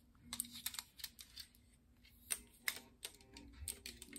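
Irregular clicks and clacks of a folded camera tripod being handled and its legs pulled open, the sharpest knocks a little past two seconds in.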